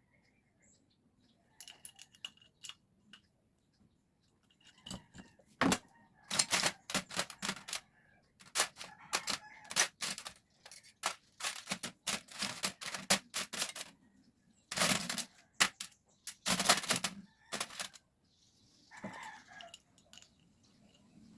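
Irregular clusters of sharp clicks and light metallic knocks from small carburetor parts and hand tools being handled, starting about five seconds in, with the loudest knocks in the second half.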